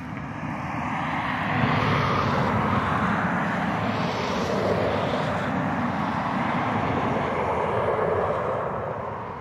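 Steady vehicle engine roar that swells about a second and a half in and eases off near the end.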